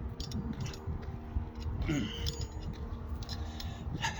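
Wind buffeting the microphone as a steady low rumble, with a faint steady hum underneath and a few small handling clicks.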